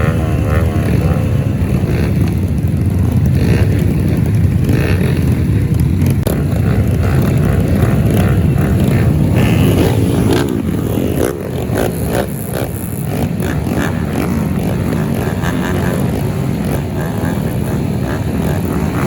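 Trail motorcycle engines racing on a dirt circuit, revving up and down repeatedly through the gears.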